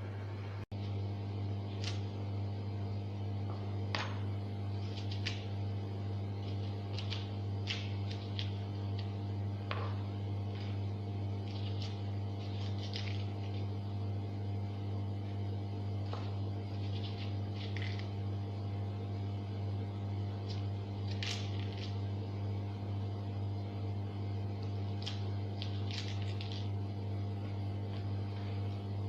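Steady low electrical hum, with short faint high-pitched ticks scattered over it every second or two.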